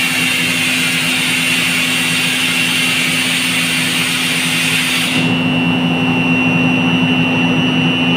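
Steady machinery hum with a high whine over it, from running plant equipment. A high hiss over the hum cuts off abruptly about five seconds in.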